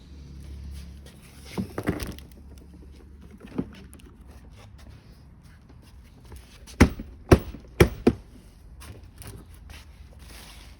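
Plastic parts of a ride-on toy car being handled and knocked together during assembly: a few clicks near two seconds in, one more a little later, then four sharp knocks between about seven and eight seconds.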